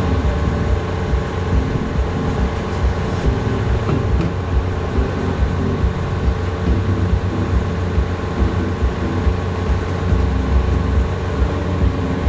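Semi-truck diesel engine idling: a steady low hum with a constant pitch.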